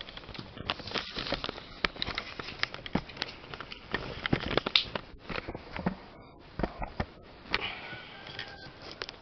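Parcel packaging being handled and opened: irregular crinkling, rustling and sharp clicks, with a brief squeak near the end.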